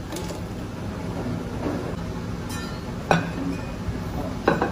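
Two sharp clinks of a plate knocking against a stainless steel pot, about three seconds in and near the end, over a steady low kitchen hum.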